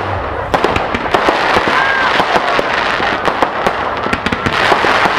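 Fireworks going off: a dense, continuous run of sharp crackles and pops in quick, irregular succession, with crowd voices underneath.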